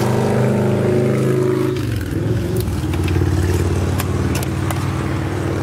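1981 Peugeot 604's 2.3-litre four-cylinder turbodiesel running with the hood open; its revs fall about two seconds in and settle to a steady idle.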